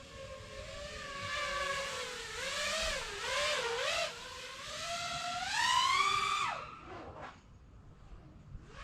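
Motors of an iFlight Nazgul Evoque F6D FPV quadcopter whining, the pitch wavering up and down with throttle. The whine climbs to its highest about six seconds in, then drops away sharply as the throttle is cut, and a fainter whine follows near the end.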